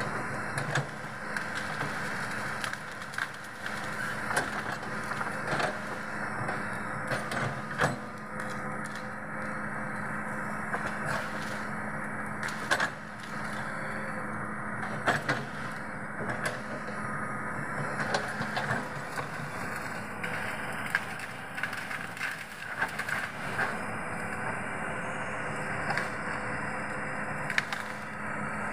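Hitachi 210F hydraulic excavator's engine running steadily under load, with repeated sharp cracking and splintering of wood as trees and branches are snapped and crushed during land clearing. The breaking wood has a crunch like eating crackers.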